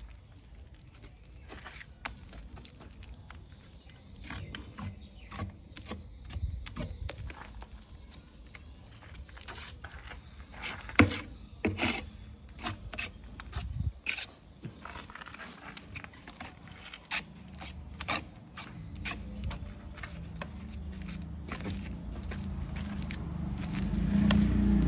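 Small steel trowel scraping and tapping through wet cement mortar on the back of a ceramic tile, a run of irregular scrapes and clicks as the mortar is worked into ridges. A low rumble builds near the end.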